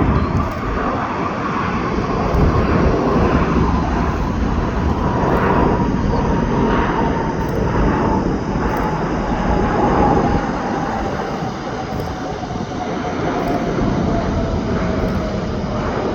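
Jet airliner passing, its engines a loud, steady rumble with a whine that slowly falls in pitch.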